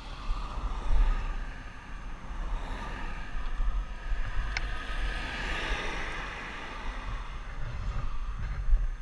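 Wind rumbling on a helmet-mounted microphone, with a vehicle passing on the road: its tyre and engine noise swells to a peak around the middle and then fades away.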